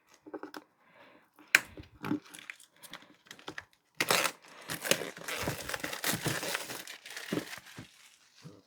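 The seal on a product box being removed and the packaging handled: scattered rustles and clicks, a sharp click about a second and a half in, then a longer stretch of tearing and crinkling from about four seconds in until near the end.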